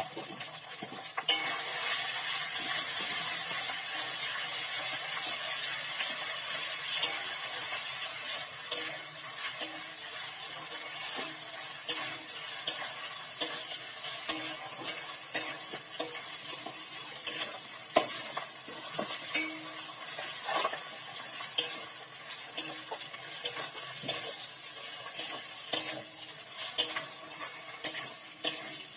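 Onions and ginger-garlic paste sizzling in hot mustard oil in a metal kadai, stirred with a steel spatula that scrapes and knocks against the pan about once a second. The sizzle gets louder about a second in.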